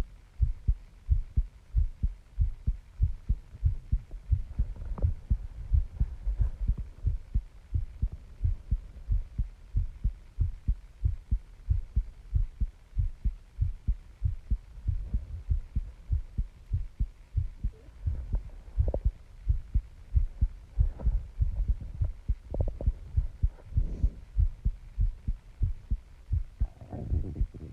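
A person's heartbeat pounding, heard up close as a steady run of low thumps.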